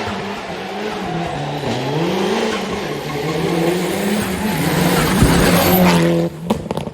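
Rally car engine revving hard, its note rising and falling again and again with throttle and gear changes over a rush of tyre noise. About six seconds in the note drops, and the sound cuts off abruptly a moment later.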